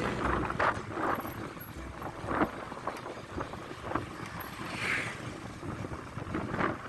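Wind buffeting the microphone while on the move, with scattered small knocks and clicks.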